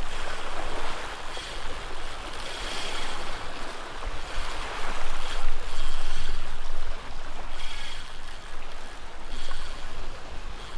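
Waves washing against jetty rocks: a steady rushing that swells and eases, loudest a little past the middle.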